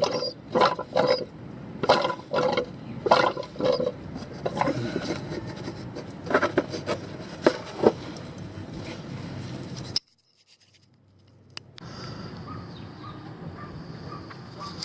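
Irregular knocking, rubbing and scraping from hands working a plastic fluid bottle and fill hose, with a sudden gap of silence about ten seconds in.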